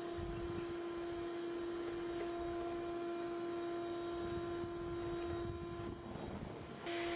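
Shop vacuum running on blow through a long PVC pipe extension: a steady motor whine over rushing air. Near the end the whine drops away for about a second, then comes back abruptly.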